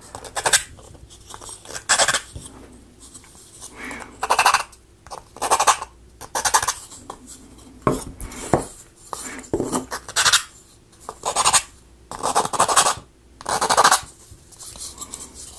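Hand sanding tool rubbing over laser-cut wooden model pieces in short strokes, about one a second, sanding the nooks and crannies of the parts smooth.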